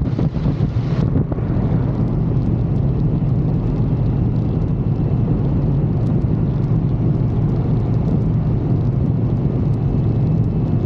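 Motorcycle riding along a road at steady speed: a constant engine drone mixed with wind rush over the microphone.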